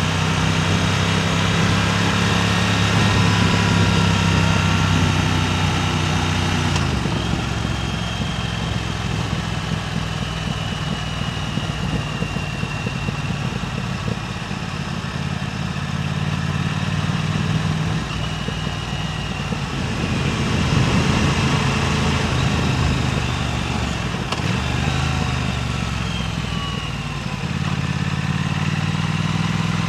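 Motorcycle engine running while under way, its pitch dropping about a third of the way in and shifting again a few times near the end, with steady wind rush over the microphone.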